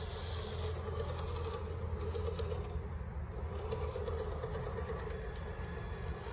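Radio-controlled rock crawler trucks driving on dirt and rocks: a steady whine from their electric motors and gear drives, with small ticks and crunches from the tyres and chassis.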